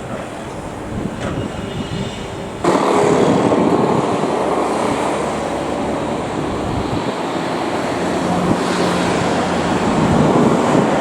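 Excavator engine running with a steady mechanical noise that jumps sharply louder about two and a half seconds in, then holds.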